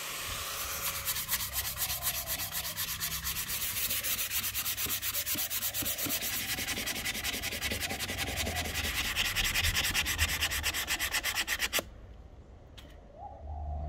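Sandpaper rubbed by hand on a rosewood axe handle in rapid back-and-forth strokes, stopping abruptly near the end.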